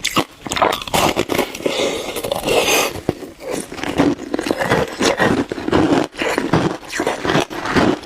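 Passion-fruit shaved ice being bitten and chewed close to the microphone: a dense, uneven run of crisp crunches and scrapes.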